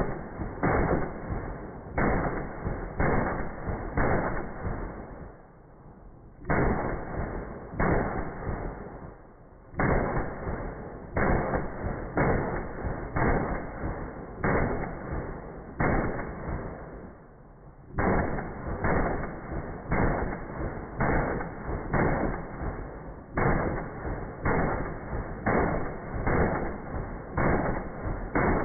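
Gunshots from a short-barreled AR-pattern rifle in .223/5.56 with a Franklin Armory BFS3 binary trigger, played back in slow motion. The shots come about once a second, each with a long trailing echo, and the string breaks off three times for a second or two.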